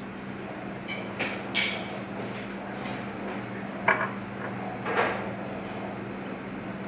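A plate and spoon being handled and set down: a few clinks and knocks of crockery and cutlery, the sharpest about four seconds in, over a steady low hum.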